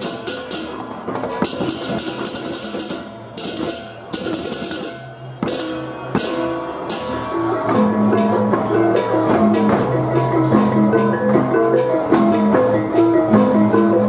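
Balinese gamelan baleganjur ensemble playing live. Loud bursts of clashing cengceng cymbals come first over drums and gongs; about eight seconds in the cymbals stop and a steady, interlocking pattern of pitched gongs (reyong) and kendang drums takes over.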